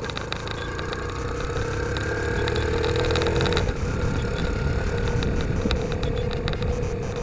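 Motorcycle engine accelerating, its pitch rising for the first half, then dropping suddenly at a gear change and running steadily, with wind noise over it.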